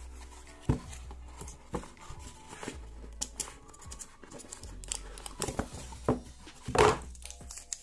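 Product packaging being opened and handled: irregular crinkling, rustling and tearing with small clicks, and one longer, louder crinkle about seven seconds in.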